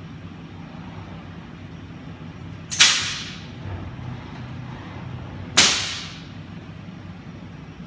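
Two sharp bursts of hissing compressed air from a custom pneumatic gripper on a robot arm, about three seconds apart. Each cuts in suddenly and fades within half a second, as the gripper releases one stack of flat cardboard box blanks and then grips the next. A steady low hum runs underneath.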